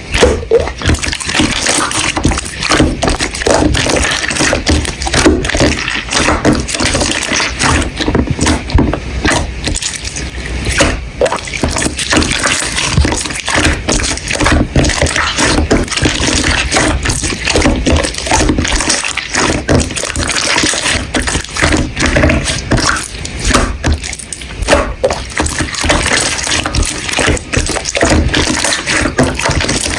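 Slime being squished and pressed by hand, a steady run of wet, sticky clicks and small pops.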